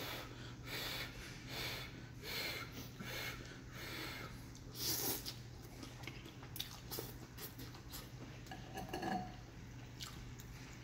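A person eating noodle soup: irregular slurps and chewing of noodles, with the metal fork clinking and scraping against a glass bowl. The loudest slurp comes about five seconds in. A steady low hum runs underneath.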